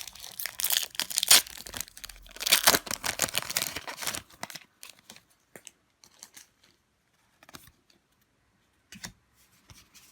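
Foil booster-pack wrapper being torn open and crinkled, a dense crackle for the first four seconds or so, then only a few scattered light rustles and clicks of handling.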